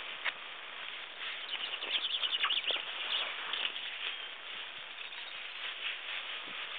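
Male chaffinch singing one song phrase: a fast run of many repeated short notes starting about a second in and lasting about a second and a half.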